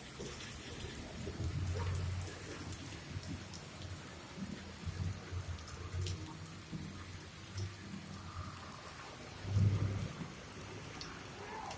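Rain falling on wet ground, a steady hiss with scattered sharp drop clicks. Low rumbles swell about two seconds in and again, louder, near ten seconds.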